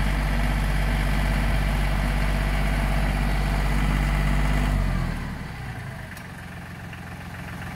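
LS G3033H compact tractor's diesel engine running steadily under load, then easing down quieter and lower about five seconds in.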